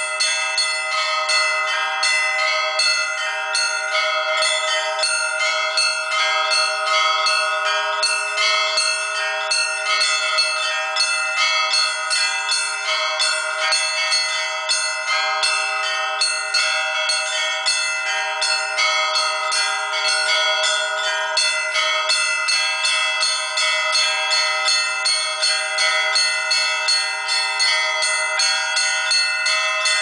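Monastery church bells rung continuously in a rapid, even peal of close-spaced strokes, several ringing tones overlapping without a pause.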